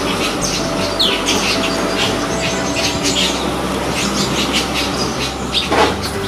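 Birds chirping and calling repeatedly, with one call sweeping downward about a second in, over a steady low hum. A short burst of noise comes near the end.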